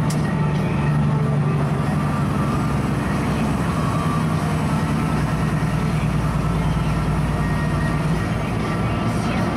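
Heavy truck's diesel engine running steadily at road speed, heard from inside the cab: a continuous low drone with a strong steady hum.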